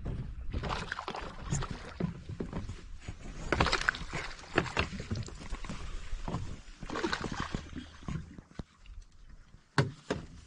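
A hooked bass splashing at the surface beside the boat as it is brought in to be landed, in irregular bursts of splashing, the loudest about three and a half seconds in and again about seven seconds in. A sharp knock comes near the end.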